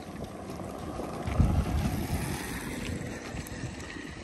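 Wind buffeting the microphone outdoors, a gusty rumble that is strongest about a second and a half in.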